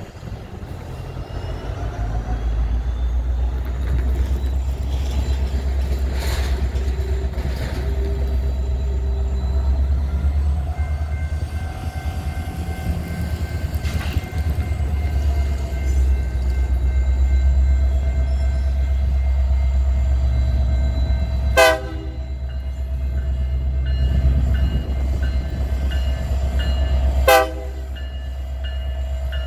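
BNSF GP60M-3 diesel locomotive rumbling as it pulls cement hoppers slowly past, its engine sound swelling as it nears. Two short, loud horn toots about six seconds apart near the end.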